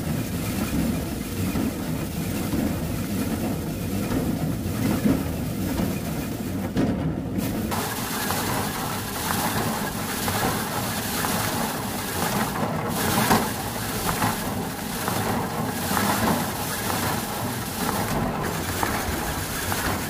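Wooden foot-pedal rice thresher running steadily: its wire-toothed drum whirs and rattles as rice stalks are held against it and stripped of grain. A few sharp knocks sound in the second half.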